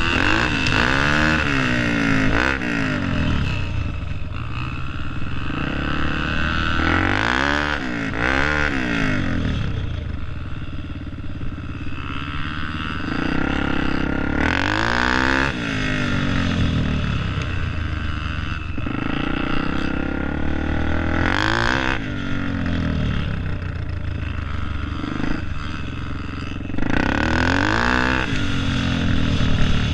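Dirt bike engine heard from on board, revving up and dropping back again and again as the bike accelerates and eases off across rough ground. It gets louder near the end.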